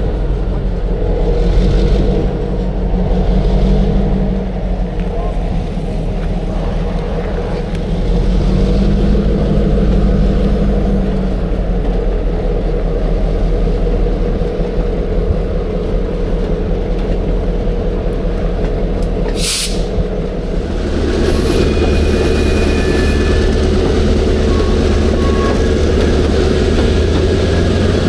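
Diesel locomotive of an excursion train running with a steady low engine drone. About twenty seconds in comes a short sharp hiss of air, then the engine gets louder and thin high wheel squeals come in as the train gets moving.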